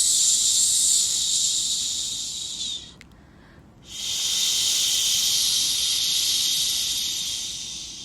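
Long shushing hiss of baby-sleep white noise, coming in waves about four seconds long. Each wave fades out before a pause of about a second.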